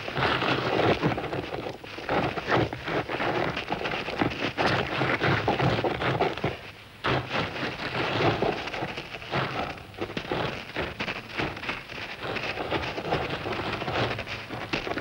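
Dense crackling and scraping of a dung beetle rolling its dung ball over dry sand, with a brief lull about seven seconds in.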